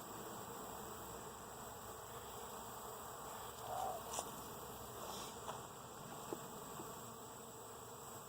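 Honeybees buzzing in a steady hum around an open hive, with one bee buzzing close and louder for a moment about halfway through. A few light clicks follow, from the hive parts being handled.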